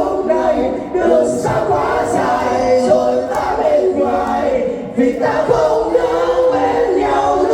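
Several voices singing a melody together, live, with crowd noise beneath.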